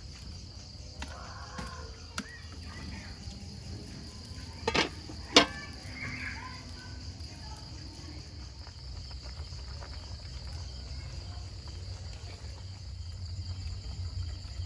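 Steady night chorus of crickets chirping. About five seconds in, two sharp metallic clanks come half a second apart as a metal lid is set on the cooking pot.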